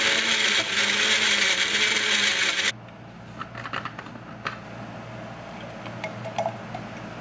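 Personal bullet-style blender running loudly, blending frozen mango with rum, and then cutting off suddenly just under three seconds in. After it stops there are a few light clicks and knocks as the cup is lifted off the base and opened.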